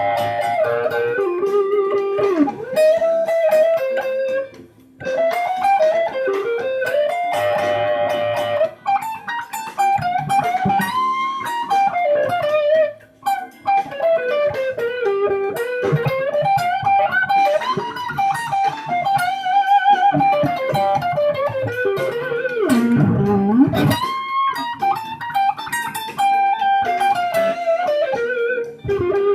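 Telecaster-style electric guitar played through an MXR Fuzz Classic mini fuzz pedal into an amp: blues-style single-note lead lines with string bends and a few held chords, with short breaks about five and thirteen seconds in.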